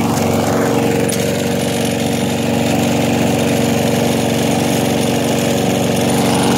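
Toro walk-behind lawn mower's single-cylinder engine running steadily as it is pushed through tall grass.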